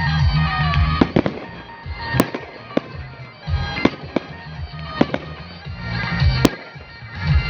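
Fireworks going off: a run of sharp separate bangs, about eight over several seconds, over music playing.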